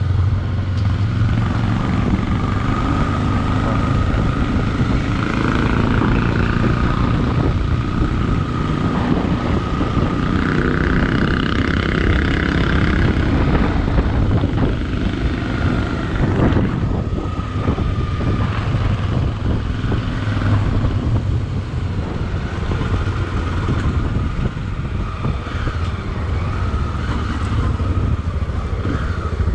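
Motorcycle engine running steadily while riding, with a thin high whine that comes and goes.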